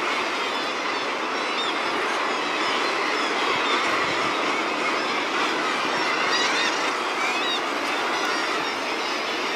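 Seabird colony din: many guillemots and kittiwakes on the breeding cliff calling at once, a steady dense chorus with sharper high calls standing out here and there.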